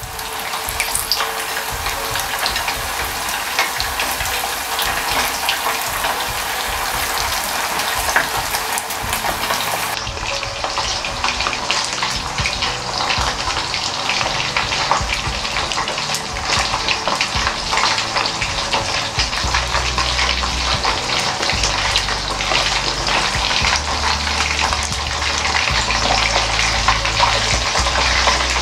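Chicken pieces deep-frying in hot oil in a pot: a steady, dense crackling sizzle.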